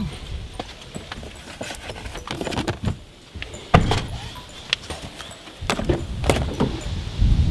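Scattered knocks and clicks of things being handled at a car's open rear door as a paper gift bag is lifted out, the sharpest knock a little under four seconds in.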